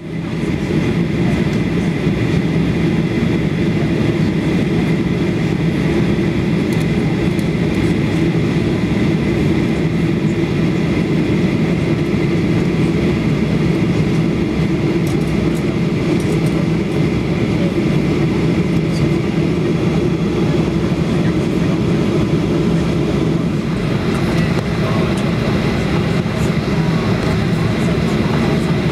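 Boeing 737 jet engines running at taxi power: a steady, loud rumble with a thin, high whine over it.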